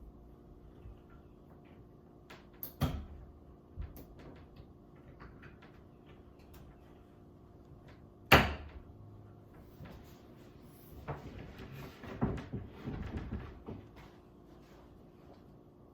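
Handling noise from cables being installed and tied down: scattered clicks and a few sharp knocks, the loudest about eight seconds in, then a stretch of rustling and clicking about eleven to fourteen seconds in.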